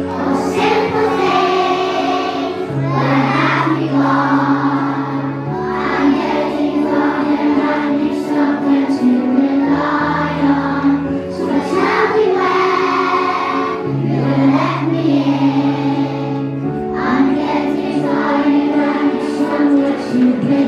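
A large group of young children singing a song together, over a backing accompaniment of held low notes that change every few seconds.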